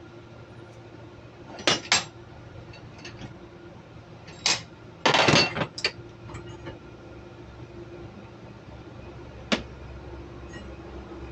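Hand tools clinking and clattering on metal while a diesel fuel injector clamped in a bench vise is worked on with a wrench. There are two quick clinks about two seconds in and another a little later, then a longer, louder clatter just past the middle. A single sharp clink comes near the end.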